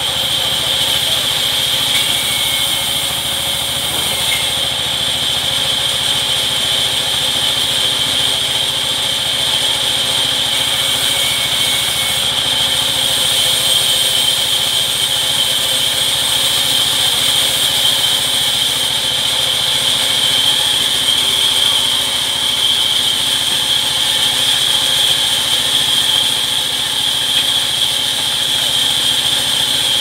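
Large sawmill band saw running and cutting rain tree planks, a steady loud machine drone with a constant high whine.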